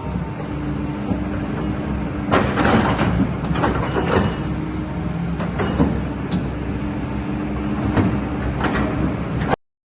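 Kobelco SK200 excavator's diesel engine running steadily, with several clanks and knocks from the machine between about two and nine seconds in.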